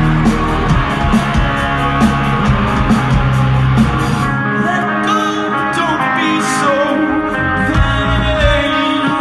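Live rock band playing loudly with singing and guitar. About four seconds in, the drums and bass drop out, leaving guitar and vocals, and they come back in near the end.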